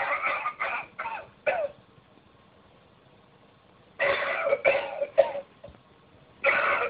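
Novelty coughing ashtray playing recorded coughing and throat-clearing through its small speaker, thin-sounding. The coughs come in three bouts: one at the start, one about four seconds in, and another starting near the end.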